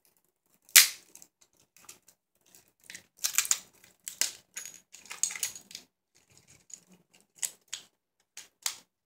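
A calculator's casing being pried and snapped apart by hand: a run of sharp cracks and clicks, the loudest about a second in.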